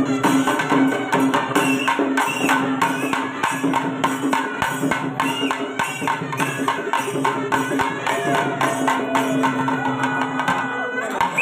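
Kerala temple ensemble music: drums and cymbals beat a steady, even rhythm while a wind instrument plays a wavering melody above them.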